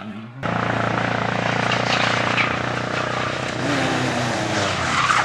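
A racing car engine running at fairly steady revs. It starts abruptly about half a second in, and a louder rush builds near the end.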